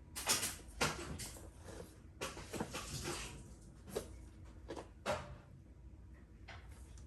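Irregular rustling swishes and soft knocks of a person doing full bows (prostrations): clothing brushing and the body going down to the floor and rising again.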